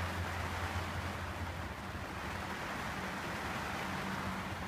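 Steady rain falling on a sailboat's cockpit enclosure, an even hiss with a low hum beneath it.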